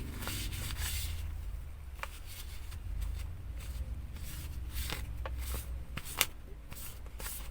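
Light handling of a hard phone case and tissue: soft rustles and scattered small clicks and taps, with a sharper tick about 2 s in and another about 6 s in.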